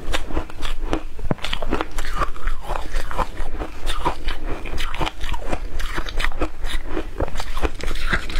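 Shaved ice being bitten and chewed: a rapid, unbroken run of crisp crunches.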